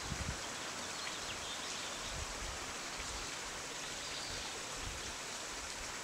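Small rocky stream running over stones in a shallow riffle: a steady, even rush of water.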